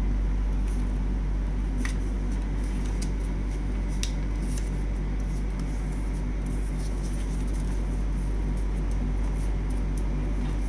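A steady low hum runs throughout, with a few faint crackles of paper as a sheet is folded in half by hand.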